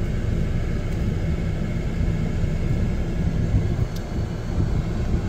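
A car in slow, stop-and-go traffic, heard from inside the cabin: a steady low rumble of engine and road noise, with a light click about four seconds in.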